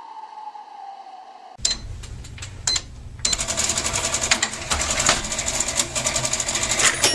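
Foley winter wind made by blowing into a microphone: a soft, thin whistling wind at first, then from about one and a half seconds in, loud breath gusts buffeting the mic with a deep rumble and a rapid flutter.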